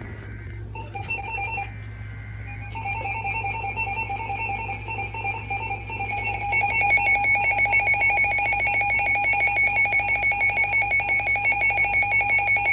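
Emergency Alert System broadcast alert: short bursts of header data tones, then the steady two-tone attention signal, which takes on a rapid fluttering pulse about halfway through.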